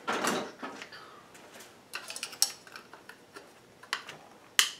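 Scattered clicks, clinks and light knocks of a small mounting plate and tools being handled at a workbench, with the sharpest click near the end.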